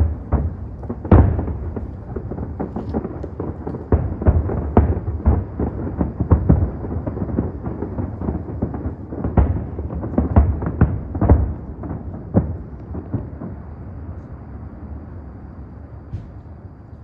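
Aerial fireworks shells bursting: many booms in quick succession over a continuous low rumble. The booms thin out after about twelve seconds and the rumble fades away.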